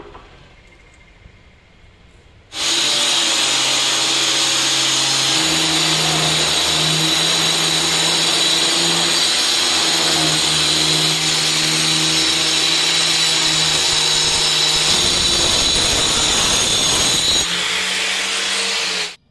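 Handheld electric stone cutter with a diamond blade ripping lengthwise through a 2.5-inch granite strip: it starts suddenly a couple of seconds in and runs loudly and steadily, a high whine over grinding noise, then cuts off just before the end.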